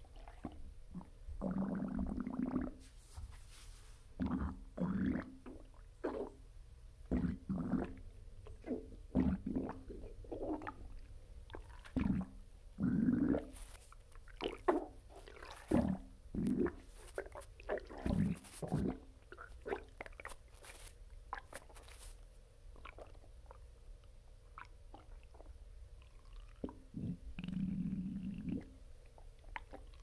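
Human stomach and bowels gurgling and rumbling in many short, irregular bursts, with a few longer rumbles about two seconds in, around thirteen seconds and near the end, picked up close to a bare belly. This is bowel activity just after a bowel movement.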